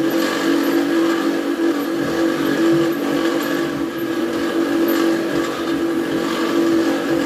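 Metal lathe running with a steady whine while its cutting tool works a spinning metal part.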